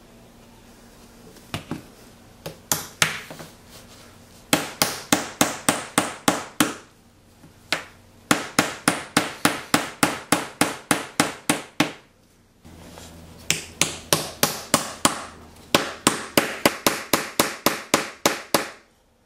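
Small ball-peen hammer tapping glued hardwood dowels home in a plywood clamp block, each strike a sharp knock on the wood. A few single knocks come first, then quick runs of about five taps a second with short pauses between them.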